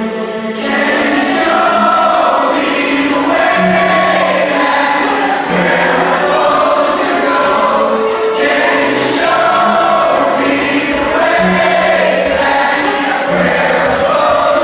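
Loud live music over a concert PA, with several voices singing together over sustained bass notes.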